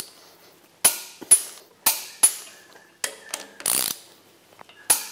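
Click-type torque wrench tightening cylinder head bolts on a V8: sharp metallic clicks about every half second, a short ratcheting rattle near the middle, and another click near the end.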